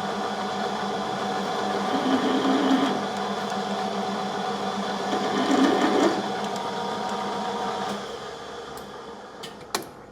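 Metal lathe running steadily with gear whine, then switched off about eight seconds in and winding down.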